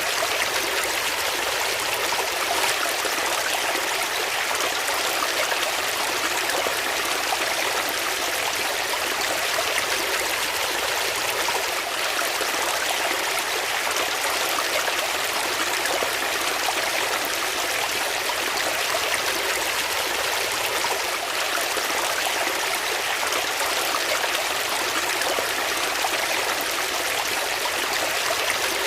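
Water flowing steadily in a stream, an even rushing and trickling with no breaks.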